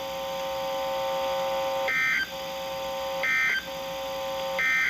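Emergency Alert System end-of-message signal on NOAA Weather Radio: three short, harsh bursts of SAME digital data tones about a second apart. Between the bursts a steady buzzing hum comes from the receiver.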